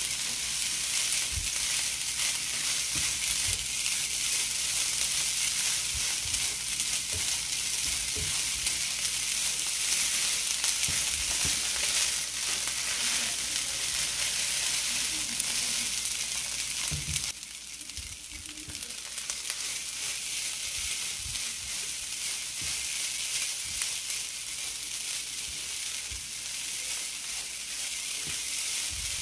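Rice frying in a nonstick skillet with a steady sizzle, while a silicone spatula stirs it with soft scrapes and taps against the pan. The sizzle drops suddenly a little past the halfway point, then carries on more quietly.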